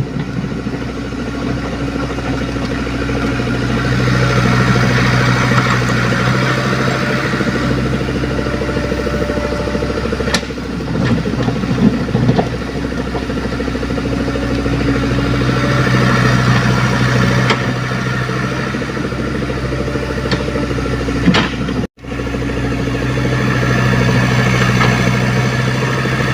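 Komatsu PC75UU mini excavator's diesel engine running steadily, its sound swelling and easing every few seconds as the hydraulics take load, with a few sharp knocks. The sound cuts out for a split second near the end.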